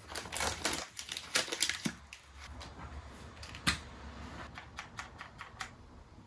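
Skincare bottles and caps being handled on a vanity counter: an irregular run of small clicks and taps as a cap is twisted off and bottles are picked up and set down, with the sharpest knock a little past halfway.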